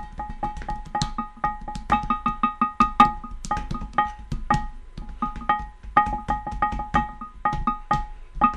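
Music of struck stones played as pitched percussion: a fast run of sharp strikes, each ringing briefly on one of a few notes, in quick repeating phrases broken by short pauses.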